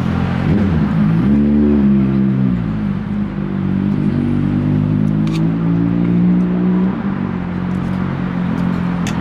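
A motor vehicle engine running; its pitch rises and falls early on, then holds fairly steady.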